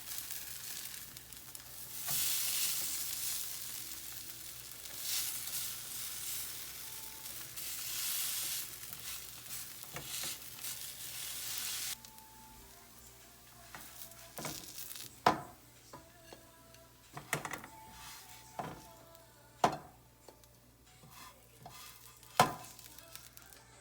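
Food sizzling in a frying pan for about twelve seconds. Then the sound changes abruptly to a quieter stretch with a handful of sharp clicks and knocks, about six, spread over the rest of the time.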